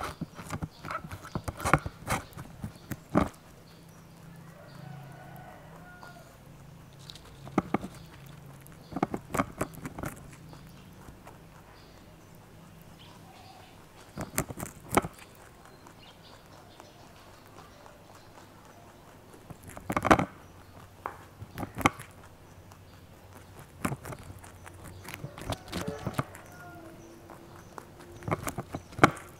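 Rabbit eating a raw cauliflower floret close to the microphone: bursts of crisp crunching bites, several in quick succession, with pauses of a few seconds between them.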